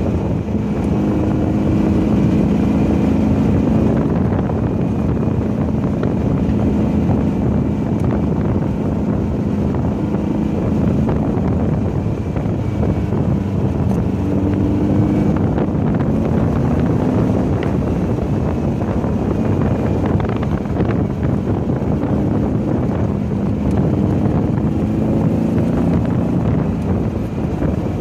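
Volkswagen car engine running hard at speed on a track lap, its pitch rising and falling with throttle and gear changes, with wind noise over it.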